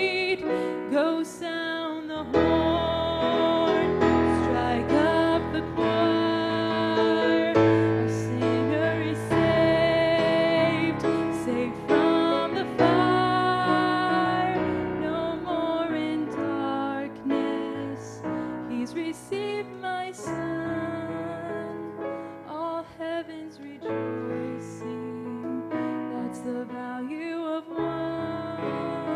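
A woman singing a gospel song with vibrato while accompanying herself on a piano-style keyboard.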